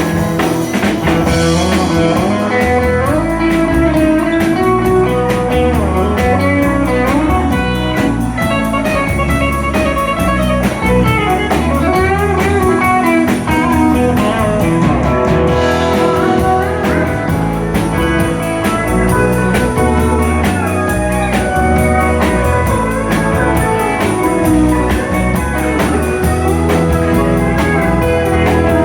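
A live country band plays an instrumental break between verses, with guitar out front over a steady drum beat.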